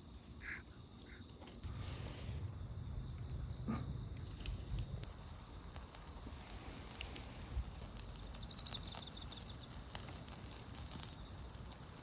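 Insects trilling outdoors: a continuous, steady high-pitched drone that holds one pitch throughout.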